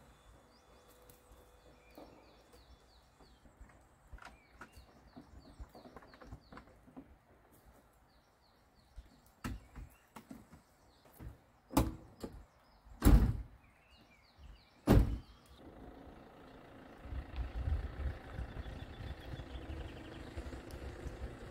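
Camper van doors slammed shut: a run of loud bangs about halfway, the three loudest a second or two apart, with birds chirping faintly. Then the Fiat Ducato camper van's engine runs, growing louder toward the end as the van drives off.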